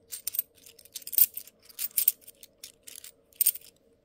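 British 50p coins clinking against one another as they are handled and sorted, a quick run of about a dozen sharp, bright clicks.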